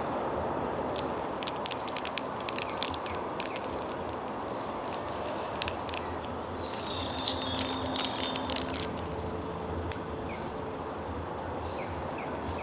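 Plastic and foil seasoning sachets crinkling as they are handled, in two spells of sharp crackles with a last click near the end, over a steady outdoor background hiss.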